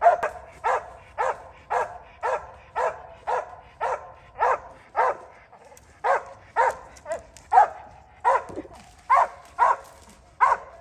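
Squirrel dog barking steadily at a tree, about two barks a second with a brief pause around the middle: treeing barks that mark a squirrel up in that tree.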